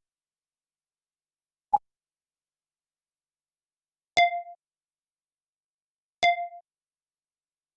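Synthetic computer alert sounds: a single short click, then the same bright electronic chime twice, about two seconds apart. Each chime fades away in a couple of quick repeats.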